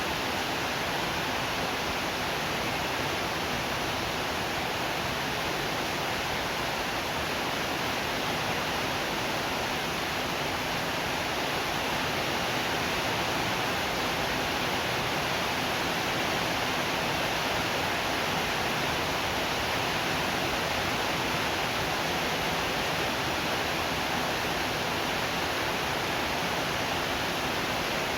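Steady rain, a continuous even hiss with no thunder or separate drops standing out.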